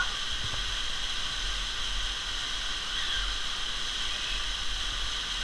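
Waterfall rushing steadily into a canyon pool: an even hiss with a low rumble underneath.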